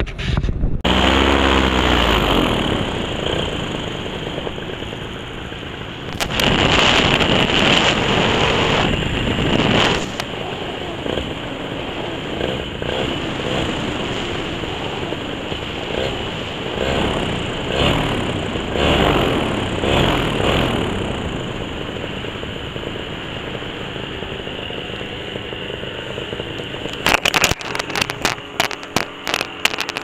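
Paramotor engine and propeller running steadily in flight, with wind rushing past, louder for a few seconds about six seconds in. Near the end the drone stops at touchdown and a quick run of knocks and thumps follows.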